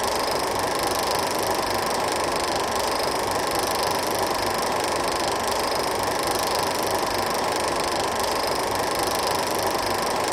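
16mm film projector running, a steady mechanical whirring noise with no change throughout.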